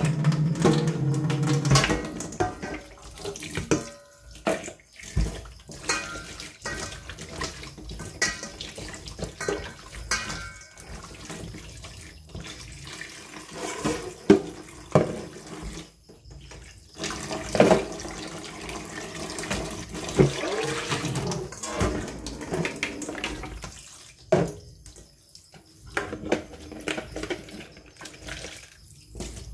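Kitchen tap running into a stainless steel sink while fish pieces are rinsed by hand in a plastic dipper and a steel bowl: water running and splashing, loudest for about the first two seconds, with scattered knocks and clinks of the bowls against the sink.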